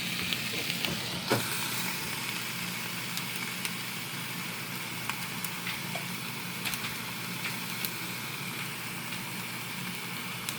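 Chicken breast sizzling on the hot plates of an open George Foreman grill: a steady hiss with scattered small pops and crackles, and one sharper crack about a second in, over a low steady hum.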